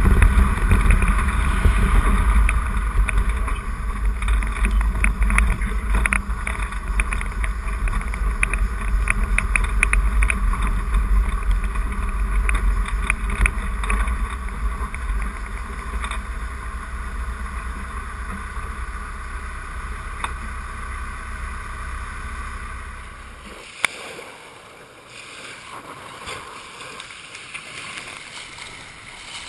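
Vehicle driving along a gravel dirt road, picked up by an outside-mounted camera: a steady heavy rumble of engine and wind buffeting, with scattered crackles of gravel under the tyres. About three-quarters of the way through the sound cuts suddenly to quieter water at a pebble beach, with splashing near the end.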